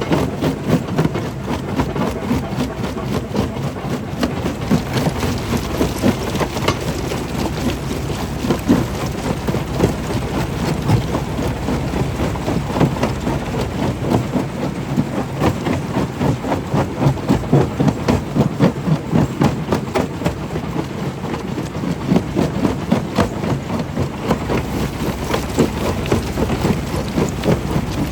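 Stone crusher running: a steady heavy machine drone with dense, irregular knocking and rattling of stone being broken.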